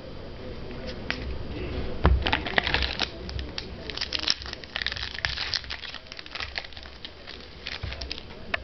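Trading-card pack wrapper being torn open and crinkled in the hands, with a dull knock about two seconds in. The crinkling is densest from about two to five seconds in and comes again briefly near the end.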